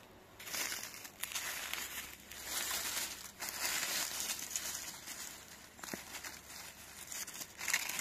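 Dry fallen leaves crackling and rustling as a hand pushes through the leaf litter, in several spells with short pauses between.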